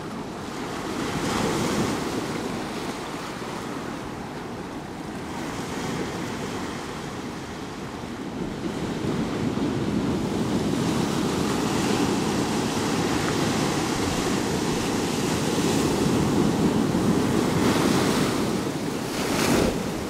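Ocean surf breaking over rocks and washing up a sandy beach. The wash grows louder about halfway through and swells again near the end.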